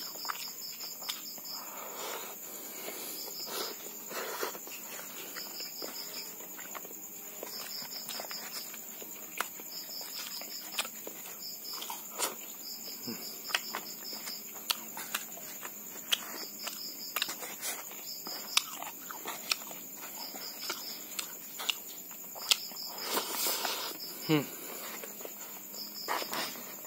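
Close-up eating sounds from rice eaten by hand: wet chewing and lip smacks, with small clicks and rustles of fingers in a styrofoam box. Behind them, insects chirp without a break: a continuous high trill, and short pulsed chirps that come back every second or two.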